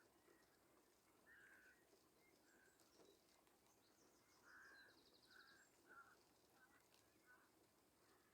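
Faint bird calls in near silence: a scatter of short calls, and a brief rapid high trill a little past halfway.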